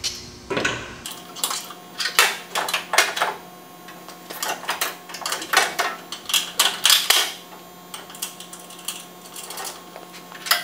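Irregular metallic clicks and clatter, coming in quick clusters, from a coilover shock and its mounting bolts being fitted into the upper A-arm bracket of a car's front suspension.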